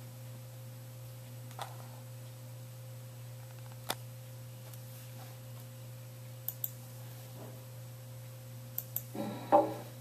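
Steady low electrical hum with a few isolated sharp clicks scattered through it; near the end, music from the playing video starts up with plucked-sounding notes.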